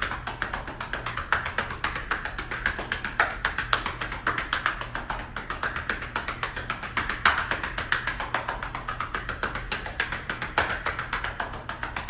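Hands patting rapidly and steadily on a person's back, several pats a second: chest physiotherapy percussion to break up and loosen mucus in the lungs.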